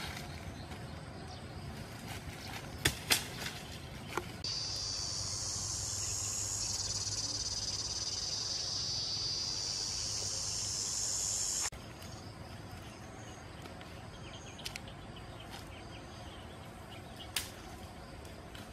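Steady high-pitched insect buzz that starts suddenly about four seconds in and cuts off sharply about seven seconds later. A few sharp clicks come before it, and one more near the end.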